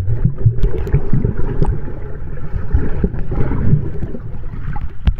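Underwater swimming-pool sound picked up by a submerged action camera: a muffled low rumble with bubbles as a swimmer breathes out underwater, and a short sharp knock near the end.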